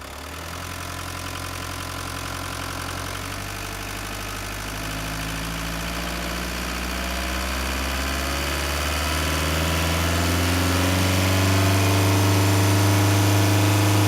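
Renault Master II van's diesel engine accelerating in a slow, even ramp up from idle, its pitch and loudness rising steadily throughout.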